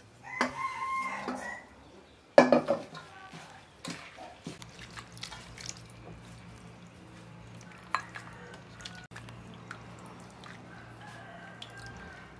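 A rooster crows once, a held call of about a second starting half a second in, followed by a short loud sound. Then small clicks and scrapes of a wooden spoon mixing chili and bean sprouts over a steady low hum.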